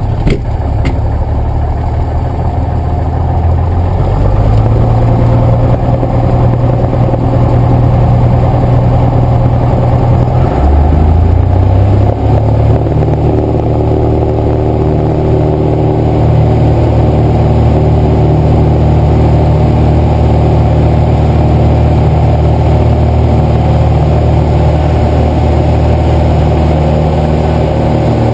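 Cessna 172's piston engine and propeller, heard from inside the cabin. The engine picks up about four seconds in, rises in pitch to full takeoff power about twelve seconds in, then holds a steady drone on the takeoff roll.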